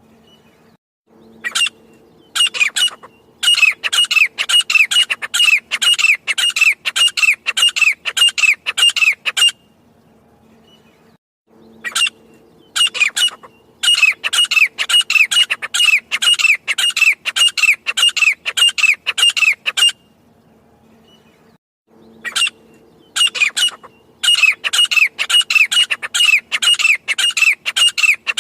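Grey francolin calling: loud, harsh notes repeated in quick succession, in three long bouts separated by short pauses.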